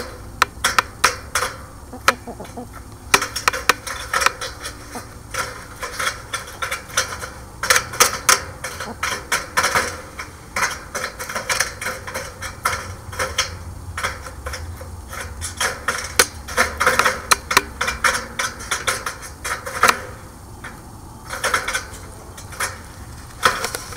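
Chickens pecking at and around the camera: irregular rapid taps and clicks in clusters, over a steady low hum.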